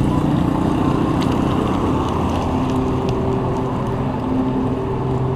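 Street traffic: motor-vehicle engines running nearby, with a steady low engine hum that comes in about two and a half seconds in.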